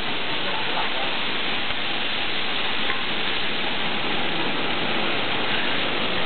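Chopped vegetables sizzling steadily on a hot flat-top griddle.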